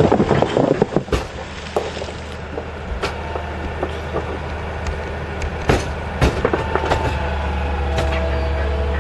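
Heavy machine's engine running steadily with a low drone, with scattered metallic clanks and knocks over it.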